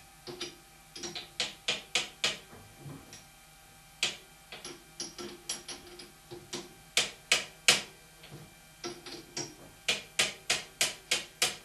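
Steel puck being tapped down with a light hammer to seat it squarely in a three-jaw lathe chuck: sharp metallic taps in quick runs of several, the loudest about seven seconds in and near the end.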